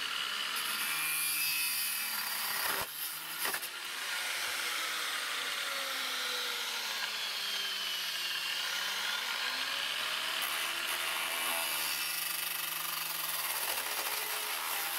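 Angle grinder with a cutting disc running and cutting through a thin steel drywall guide profile. The motor's pitch sags under load as the disc bites, then climbs back, with a brief dip about three seconds in.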